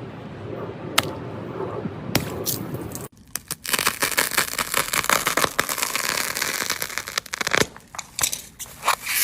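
Something crisp being crushed or scraped, making dense crackling and crunching. About three seconds in the sound changes abruptly. Before that it is a low, even rustle with a couple of sharp clicks.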